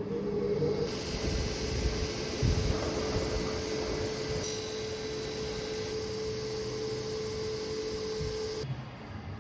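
A power tool running steadily, with a constant whine under a loud hiss. It starts up within the first second and cuts off suddenly near the end.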